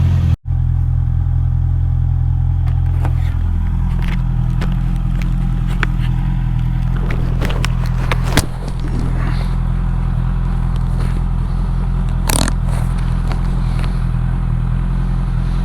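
Honda CB650R inline-four motorcycle engine idling steadily, with scattered clicks and scrapes of handling close by and a sharp knock about eight seconds in.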